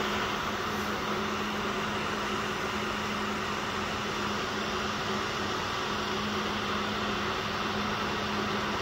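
Glass-top electric cooktop running at its 180-degree setting: its cooling fan gives a steady rushing noise with a low steady hum underneath, as it heats a carbon steel pan.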